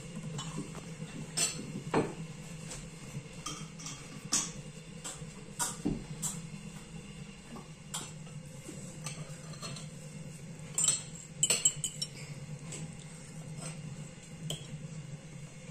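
Forks and cutlery clinking against china plates and drinking glasses in scattered light clicks, with a cluster of louder clinks about eleven seconds in, over a low steady hum.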